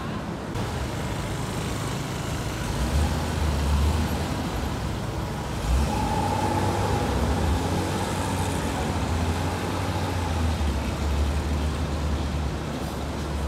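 Street traffic, with a steady low engine rumble from passing vehicles that sets in about three seconds in.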